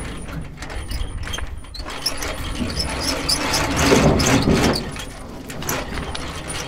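Aluminium drift boat being launched off a tilting boat trailer: metal rattling, clanking and scraping as the trailer tips and the hull slides back, loudest about four seconds in.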